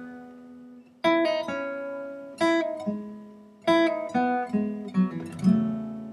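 Background acoustic guitar music: plucked notes and chords struck and left to ring out, a new phrase starting about a second in.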